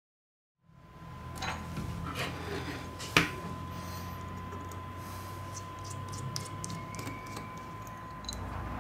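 Small sharp clicks and ticks of a precision screwdriver at the bottom screws of an iPhone 6, with one louder click about three seconds in, over a steady electrical hum and thin whine. The sound starts from dead silence a moment in.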